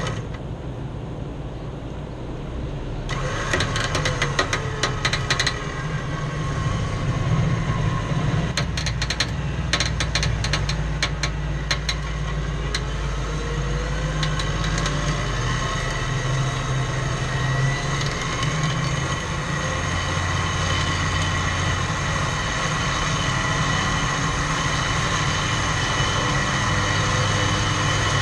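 Off-road vehicle engines running steadily during a winch pull of a Toyota Land Cruiser stuck in a muddy rut, with bursts of clicking and clatter a few seconds in and again around the middle.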